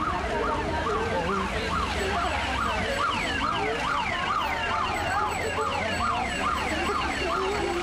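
A siren yelping, its pitch sweeping up and down quickly about two or three times a second, over a low rumble.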